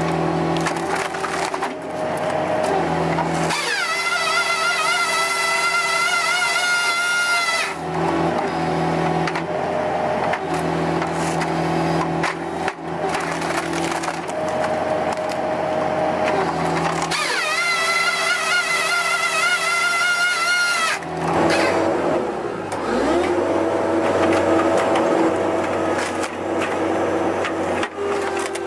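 Machine-mounted firewood processor cutting and splitting birch logs: machinery running steadily under load, with wood cracking and splitting. Twice a higher, wavering whine rises in quickly and holds for about four seconds.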